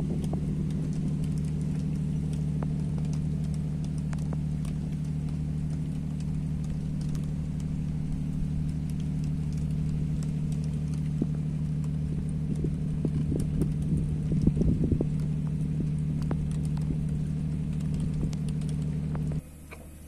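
Steady low drone of a ship's engines heard on a ferry deck, with scattered light taps of raindrops hitting the phone. The hum drops off sharply near the end.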